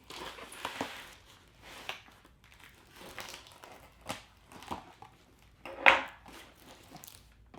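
Packaging rustling and crinkling as a shipping box is opened by hand and its contents pulled out, in irregular scrapes and rustles with a louder burst about six seconds in.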